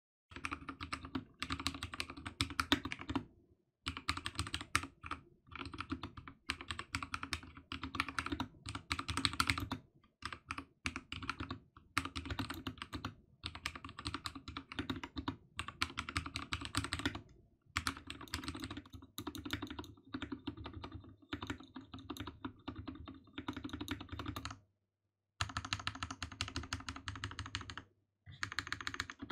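Typing on a lubed mechanical keyboard: fast runs of key clacks in bursts of a few seconds, with short breaks between them.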